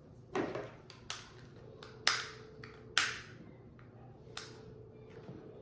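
Close-up eating sounds: five sharp, short mouth smacks or clicks at uneven intervals about a second apart, each dying away quickly.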